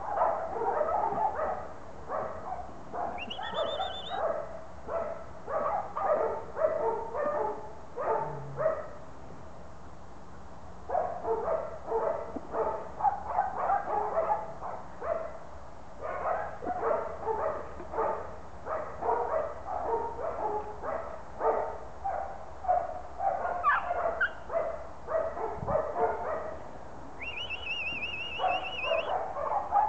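Border collie barking in quick, repeated runs of about two or three barks a second while playing, breaking off briefly about ten seconds in and again near the end.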